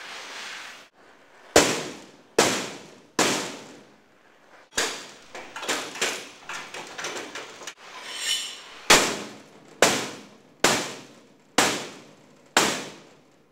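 Hammer striking a heated steel bracket to straighten out a bend: a series of sharp, ringing metal blows, roughly one a second, about fourteen in all.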